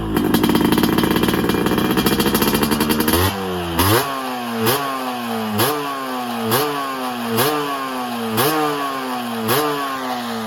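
Two-stroke motorcycle engine held at high revs for about three seconds, then blipped over and over, each blip a quick rise in pitch that falls slowly away, about once a second.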